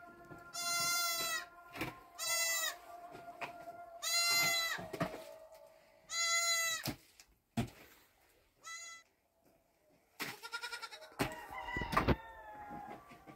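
Goats bleating: five wavering calls in the first nine seconds, then a few knocks and short clattering sounds near the end.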